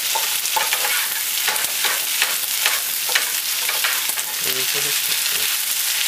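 Flat rice noodles sizzling in a hot nonstick skillet while a plastic spatula stirs and scrapes them against the pan. A steady sizzle runs under many quick scraping strokes.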